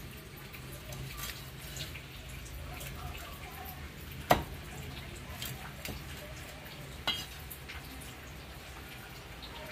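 Cleaver chopping loach into pieces on a wooden chopping board: two sharp chops about three seconds apart, the first the louder, with faint clicks and knocks between them over a low steady hum.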